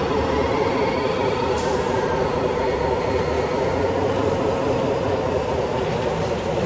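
Remote-control construction models running: a steady mechanical drone of their motors and gearing, with a brief hiss about a second and a half in.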